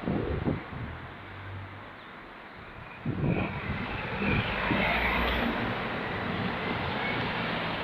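Passing vehicle noise: a steady rush that rises suddenly about three seconds in and then holds.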